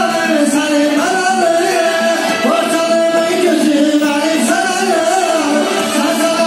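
A man singing through a microphone over amplified backing music, holding long notes that slide up into each phrase and waver as they are held.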